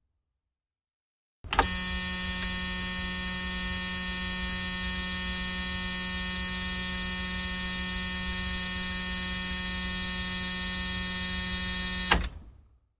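Digital watch alarm clock's electronic alarm sounding as one continuous high-pitched buzz. It starts about a second and a half in, holds steady for about ten seconds, and then cuts off abruptly.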